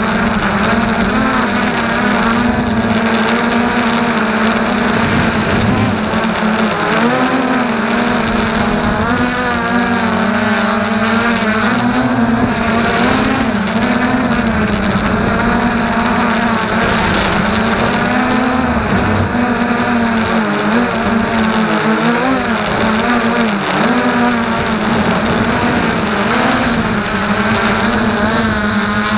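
FreeX Skyview quadcopter's motors and propellers whining steadily in flight, heard from its onboard camera. Its pitch wavers up and down now and then as it flies.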